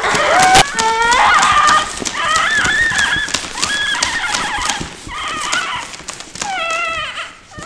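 Children's voices making animal noises, high wavering calls in several stretches, over recurring crackling clicks in the recording.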